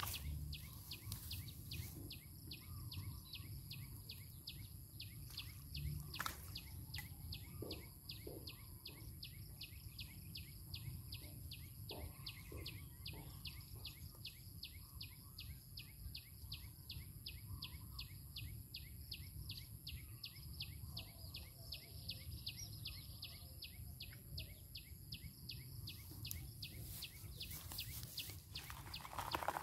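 Quiet outdoor ambience: a high chirp repeated steadily about three times a second, over a constant thin high whine and a low rumble.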